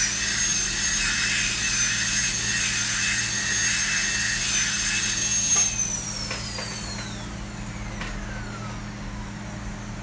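Dental drill handpiece whining at a steady high pitch, then let off about six seconds in and spinning down, its pitch falling as it slows.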